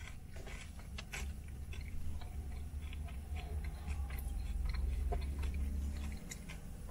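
Chewing a crispy fried egg roll with the mouth closed: soft, irregular crunches and clicks. Under it, a low rumble swells about a second in and stops about six seconds in.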